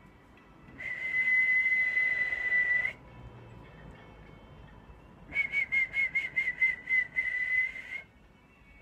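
A man whistling a high note into a telephone mouthpiece: one long steady whistle about a second in, then after a pause a warbling, trilled whistle lasting nearly three seconds.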